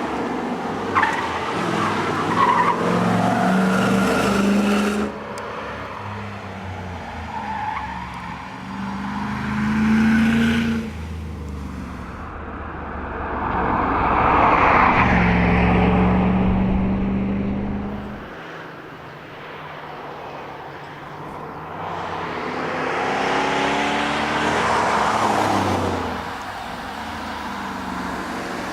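Mercedes SL500's V8 engine driven hard, repeatedly accelerating with rising pitch and easing off through gear changes and corners, with some tyre noise.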